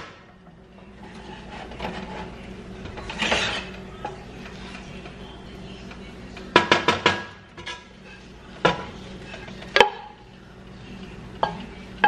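Wooden spatula knocking against the rim of a metal saucepan to shake off cooked rice. It gives a quick run of about five ringing knocks about six seconds in, then single knocks. A soft scrape of the spatula through the rice comes earlier.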